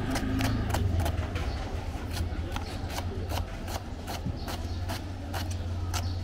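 Kitchen knife chopping a red onion on a wooden cutting board: quick, regular taps of the blade on the board, about three or four a second, over a steady low hum.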